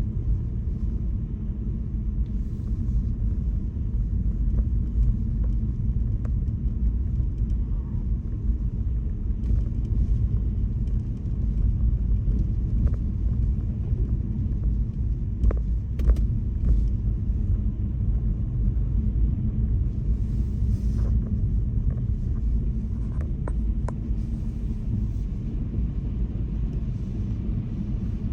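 A car driving, its engine and tyres making a steady low rumble of road noise, with a few faint clicks now and then.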